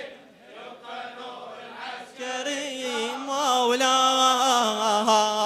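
Male reciter's voice chanting a Shia latmiyya (mourning lament) line. A quieter sung phrase comes first; about two seconds in it swells into a long, drawn-out line with a wavering pitch.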